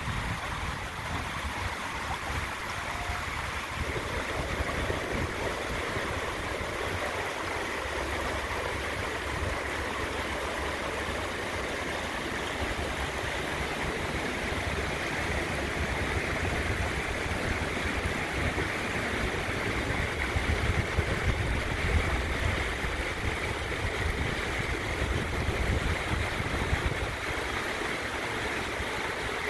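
Shallow river running over rocks and small rapids: a steady rush of flowing water.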